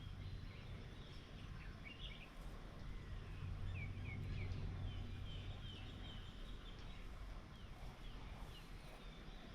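Birds chirping: short high calls and quick sliding notes, scattered throughout, over a steady low hum.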